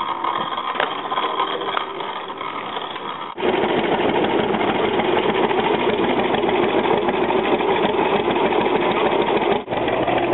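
Antique John Deere two-cylinder tractor engine running close by with a steady, even beat, starting abruptly about three seconds in. Before that, quieter machinery runs in the background.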